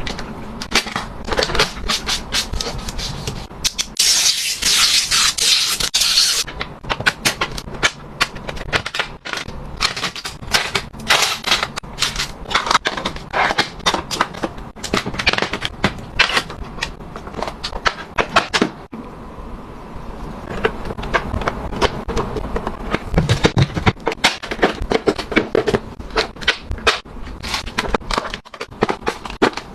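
Objects being handled, moved and set down, making a dense run of quick clicks, taps and knocks, with a brief hissing rustle about four seconds in.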